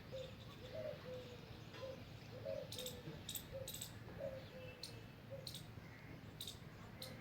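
Faint bird calls: a soft, low note repeated over and over, about one every half second, with a few sharp high chirps scattered through.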